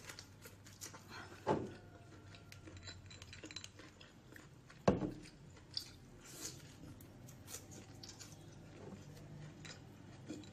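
Quiet eating sounds of a person chewing cooked lobster meat and handling the lobster shell, with scattered small clicks and two sharper clicks, the louder one about five seconds in, over a faint low hum.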